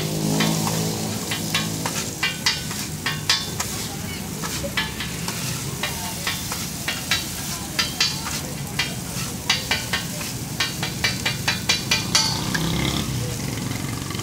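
Metal spatula chopping and scraping an egg, onion and shami kabab mixture on a flat steel griddle, clicking sharply against the steel two or three times a second over steady frying sizzle. The strikes stop near the end, leaving only the sizzle.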